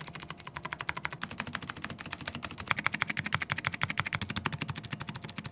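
Rapid, continuous clatter of keystrokes on a GMK67 gasket-mounted mechanical keyboard, many keys a second, as in fast typing.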